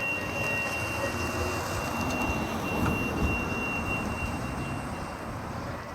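A steady, low, drawn-out rumbling drone heard from the sky, with a thin high steady tone over it that fades out about five seconds in. This is the unexplained 'strange sky sound' that the recordist likens to trumpets and has never heard before.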